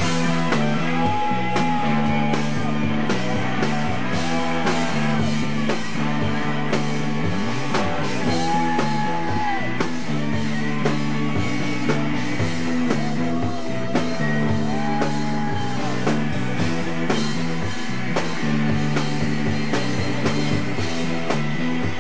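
Live rock band playing: electric guitars, bass guitar, drums and keyboard, with a lead line of long held notes that bend in pitch.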